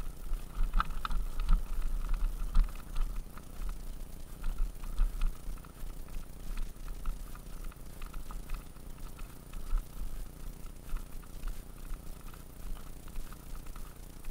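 Mountain bike rolling down a loose gravel and rock trail: tyres crunching over stones and the bike rattling with many sharp clicks, under a low wind rumble on the microphone. Rougher and louder in the first three seconds.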